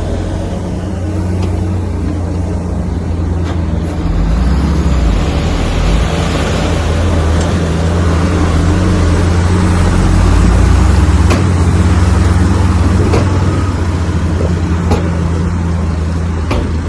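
Komatsu bulldozer's diesel engine running steadily under load, a little louder around the middle, with a few scattered sharp metallic clanks.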